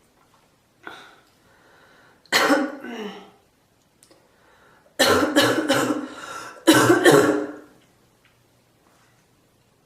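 A person in a coughing fit: one hard cough a little over two seconds in, then from about five seconds in a quick run of several coughs in two clusters.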